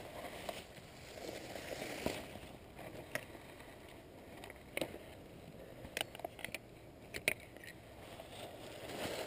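Light clicks, knocks and rustling of dry leaves as a spinning rod and a landing net are picked up and handled, over the faint steady rush of river water.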